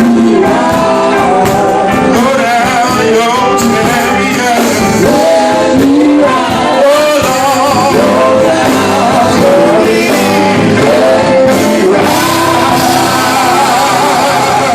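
Gospel group singing with several voices over instrumental backing.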